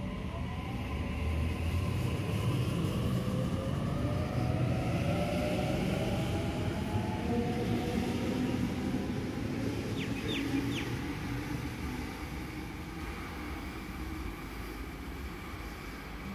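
Sydney Trains Waratah double-deck electric train pulling out of the platform: its traction motors whine, rising in pitch as it gathers speed, over a steady rumble of wheels on rail, and the sound dies away as the train clears the station. A few short high chirps come about ten seconds in.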